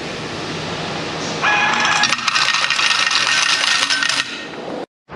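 American Changer coin machine paying out quarters: a rapid clatter of coins dropping into its coin cup begins about a second and a half in, runs for about three seconds, then stops suddenly.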